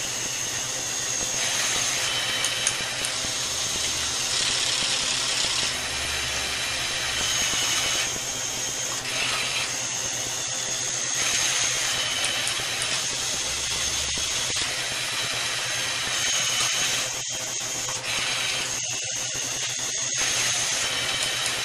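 LEGO loom machine running: its small electric motors and plastic gear trains whir steadily, the tone shifting every second or two as the mechanism moves through its cycle, with a thin high whine that comes and goes.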